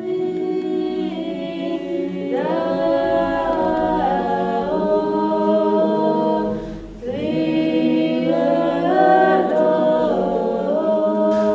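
Women's voices singing Georgian Orthodox church chant a cappella, in two long phrases of held, stepping notes with a short break for breath about seven seconds in.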